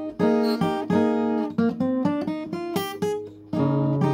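Acoustic guitar strumming chords, breaking into a quick run of single picked notes midway before the strummed chords return near the end.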